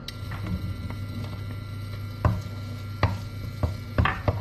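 Wooden spatula knocking against a bowl and frying pan as minced garlic is scraped into hot oil, five or so sharp knocks in the second half, over a steady low hum.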